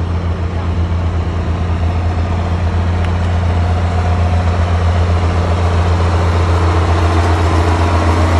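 Diesel engines of large John Deere farm tractors running as the tractors drive past, a steady low hum that grows slowly louder as one comes close.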